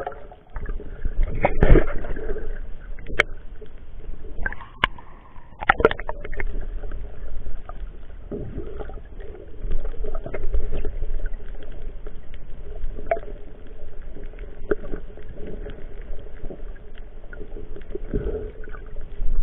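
Muffled underwater noise through a waterproof camera housing: a low rumble of moving water with a handful of sharp clicks and knocks, the loudest about two seconds in.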